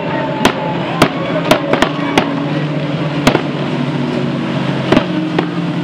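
Many fishing boats' outboard motors running at speed together in a steady drone. About eight sharp firecracker bangs go off at irregular intervals over it.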